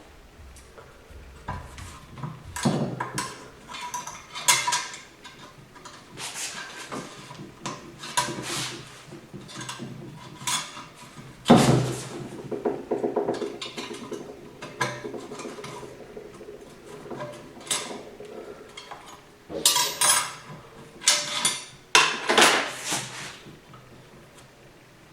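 Metal parts and tools of a Ford 5R55S automatic transmission clinking and knocking as a clip is worked into place during reassembly. One loud knock about halfway through rings on for a couple of seconds, and a run of louder knocks comes near the end.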